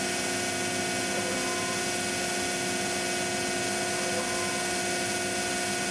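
ShopBot PRSalpha CNC router's ATC spindle running, with a steady whine of several constant tones over an even rushing noise, while it cuts pocket holes in a plywood sheet.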